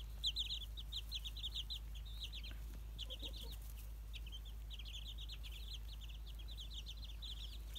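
Young chicks peeping: short, high chirps in quick runs of several a second, pausing briefly now and then.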